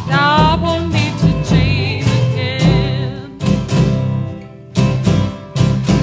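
Folk song: a woman sings with a wide, wavering vibrato over guitar for about the first three seconds. The voice then stops and the guitar strums a few separate chords, the last one ringing on.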